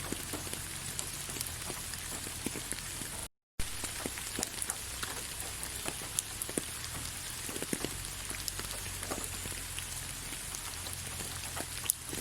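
Rain falling on leaves: a steady patter with many separate drops ticking. The sound cuts out completely for a moment about three seconds in, then resumes.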